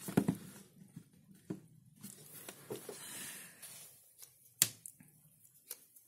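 Handling noises as a handheld digital multimeter and a plastic power adapter are set out on a table and the meter's test leads are plugged in: scattered light plastic clicks and knocks with some cable rustle, the sharpest click about four and a half seconds in.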